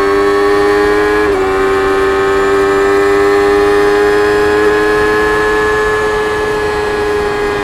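Stock 2024 Kawasaki Ninja ZX-6R's 636 cc inline-four engine and stock exhaust running steadily at speed. Its note dips briefly about a second in, then climbs slowly.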